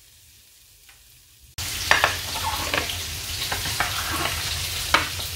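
Quiet at first, then about a second and a half in a sudden start of anchovies sizzling in hot oil in a frying pan. A few sharp clicks and taps of a utensil sound over the steady sizzle.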